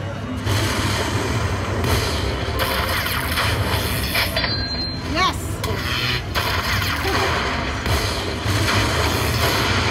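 Aristocrat Sahara Gold Lightning Link slot machine playing its win count-up sounds as the bonus total tallies, against a busy background of casino voices.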